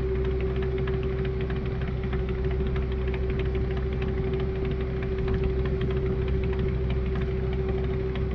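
Fishing boat's inboard engine running steadily, a constant hum with a rapid fine clatter over it.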